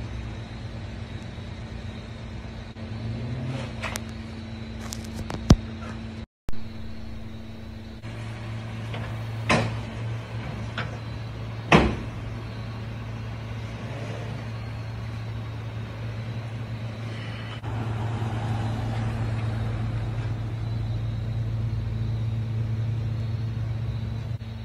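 Steady low engine hum as a Rolls-Royce is loaded onto an enclosed car-carrier trailer, with a few sharp knocks scattered through it. The sound cuts out for a moment about six seconds in, and the hum grows louder from about eighteen seconds in.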